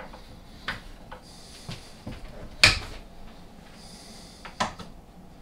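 A few separate metallic clicks and knocks from the Myford Super 7B lathe headstock as its back gear is taken out by hand, the loudest a sharp clunk about halfway through.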